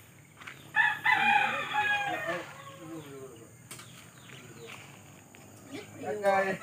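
Rooster crowing: one long crow about a second in, and another starting near the end.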